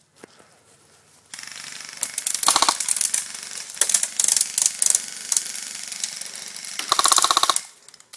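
Airsoft rifle firing several short bursts of rapid full-auto fire, the longest and loudest near the end.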